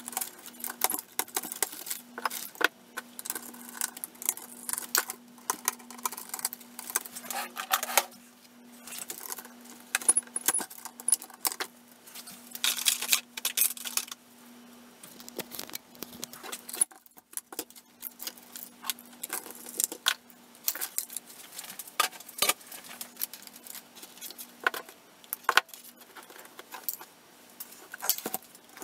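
Irregular clicks, taps and rattles of small metal and plastic parts as a Sony UVW-100P camera is taken apart by hand, its circuit boards, screws and cable connectors being lifted out and handled. A faint steady hum sits underneath.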